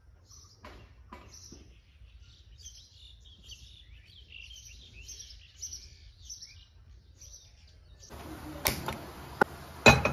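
Small birds chirping, short high calls scattered over a low background hum. About eight seconds in, a louder kitchen clatter begins with a few sharp knocks as an aluminium pressure cooker is handled on the stove.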